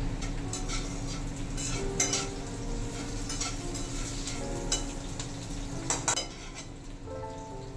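A metal spoon stirring and scraping in a cooking pot, with several sharp clinks of metal on metal, the loudest about two and six seconds in.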